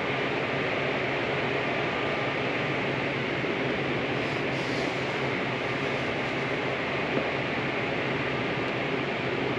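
Steady, unchanging hiss of background air noise with a faint low hum.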